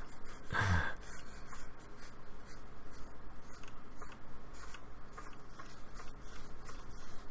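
Paintbrush scrubbing acrylic paint across a painting panel: a run of soft, irregular scratchy strokes.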